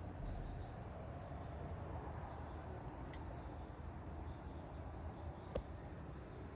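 Steady high-pitched insect chorus at dusk over a low background rumble, with a single sharp click about five and a half seconds in.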